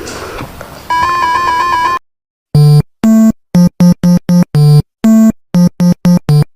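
A bird giving loud, harsh calls in quick succession, about a dozen short calls in the second half. Before them comes a noisy stretch with steady beeping tones.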